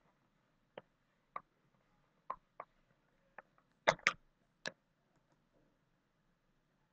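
Sparse, irregular sharp clicks, about eight over four seconds, the two loudest close together about four seconds in, over faint hiss.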